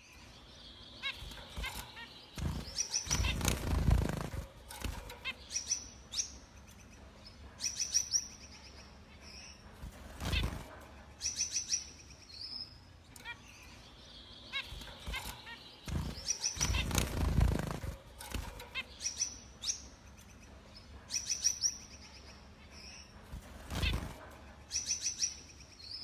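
Caged zebra finches chirping in quick runs of short, high, nasal notes. Several louder dull bumps come in among them, the loudest about four seconds in, about ten seconds in, about seventeen seconds in and near the end.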